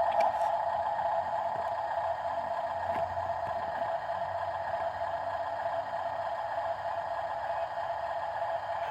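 Small electric motor of an RC model vehicle running steadily, a continuous whirr.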